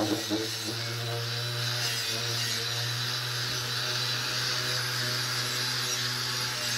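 Angle grinder with a twisted-wire cup brush running steadily, scrubbing rust off a steel bar: a constant motor hum under a dense scratching hiss.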